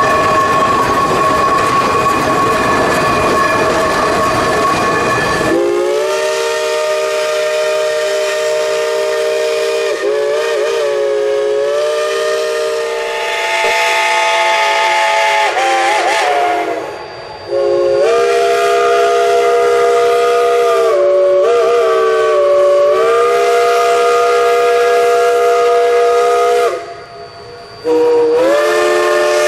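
Shay geared steam locomotives working past with a dense rumble and hiss. After about five seconds their steam whistles open up, several sounding together in a chord, in three long blasts with short breaks between them.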